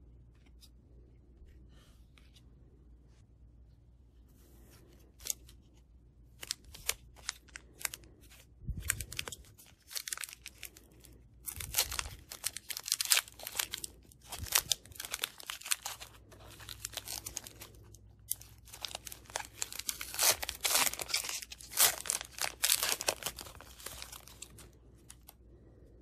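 Foil trading-card booster pack being torn open and crinkled by hand: a few sharp crackles about five seconds in, then a long run of crackling and ripping that stops just before the end.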